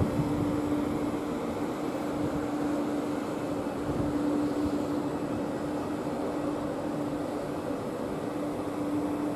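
Stationary Class 360 electric multiple unit humming steadily: one constant low tone from its onboard equipment over a faint background hiss.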